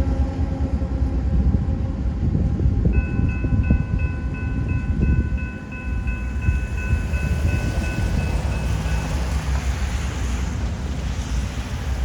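The rear of a long freight train rumbling past a grade crossing, with wind on the microphone. The crossing's General Signals type 3 electronic bell rings from about three seconds in, a few dings a second, and stops about nine seconds in.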